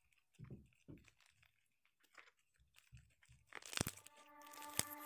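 Slime being squeezed and poked by hand, giving a few soft, crackly squishes. A sharper crackle comes about three and a half seconds in, and music starts up near the end.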